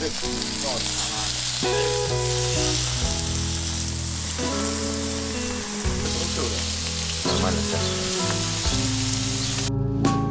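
Lamb sizzling on a hot grill, a dense hiss of frying fat, over background music with a bass line. The sizzle cuts off suddenly near the end, leaving only the music.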